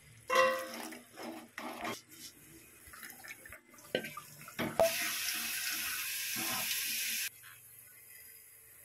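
Water tap running into a sink for about two and a half seconds, then shut off abruptly, after a few knocks and clatters.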